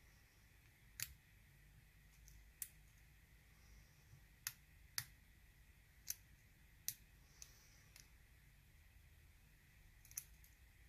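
Hook pick working the pin stacks of a Sparrows Revolver practice lock: about eight sharp, irregular metallic clicks as pins are lifted and set, one every second or so, over a faint hiss.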